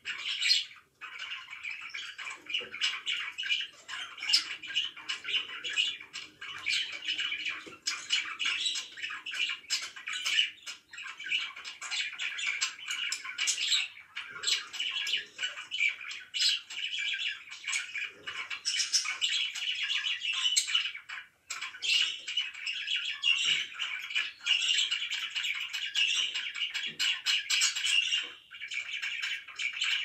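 Pet budgerigars chirping and chattering, a dense stream of rapid warbling chirps. There is a brief lull about a second in and another about two-thirds of the way through.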